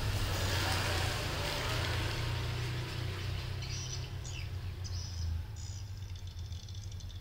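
Low rumble of a motor vehicle going by, loudest in the first couple of seconds and slowly fading. A few short bird chirps sound over it.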